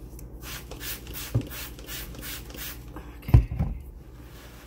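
Hands scrubbing an acorn squash with vegetable wash: a run of short, rough strokes, about three a second, with a single heavy knock about three and a half seconds in.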